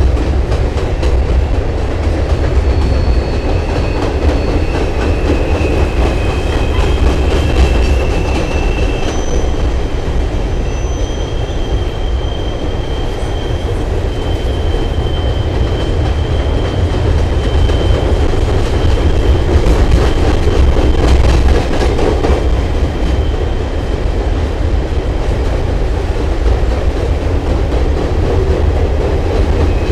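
Freight train cars rolling across a steel bridge: a steady, loud low rumble with wheels clacking over rail joints, and thin high wheel squeals that come and go several times.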